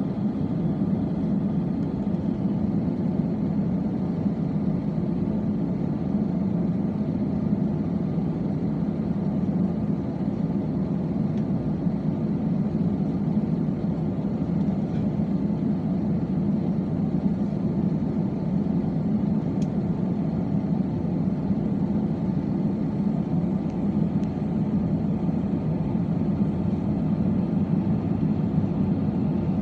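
Steady cabin noise inside an Airbus A320 with CFM56 engines: a constant low rumble and hum from the engines and airflow, holding level throughout.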